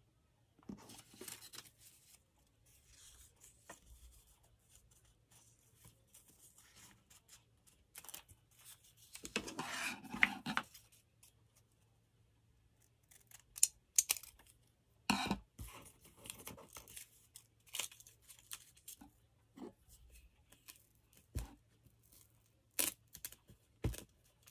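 Scrap paper strips being handled and torn: intermittent rustling with one longer tear about nine seconds in, and scattered sharp clicks and taps.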